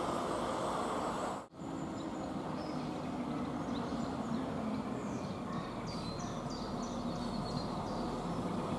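Class 195 diesel multiple unit approaching, its engines running with a steady low drone, the sound dropping out for a moment about a second and a half in. Small birds chirp high over it in the second half.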